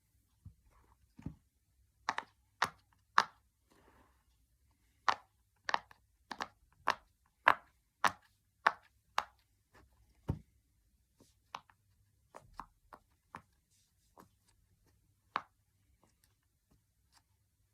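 Silicone Pop It fidget toy bubbles being pressed, each giving a short, sharp pop, one after another at an uneven pace. The pops come thick and loud for the first half, then sparser and softer.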